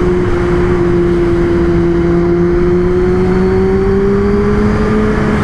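Kawasaki ZX-10R's inline-four engine running steadily at cruise. Its pitch dips slightly and then rises a little near the end. The bike sounds fast, though it is not going fast.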